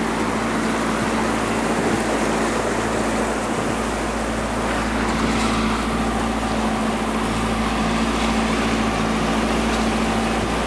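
Outboard motor running steadily with the boat under way, a constant hum over the rush of water along the hull and wind.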